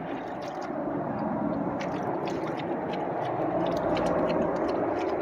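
A dog lapping water from a swimming pool: quick wet laps and splashes, several a second.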